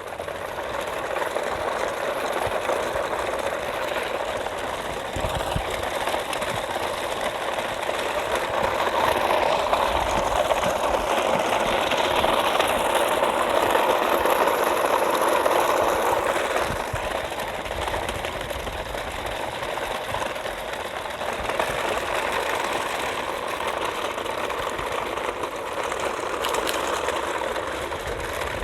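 A motor running steadily with a continuous hum, growing louder for several seconds in the middle before settling back.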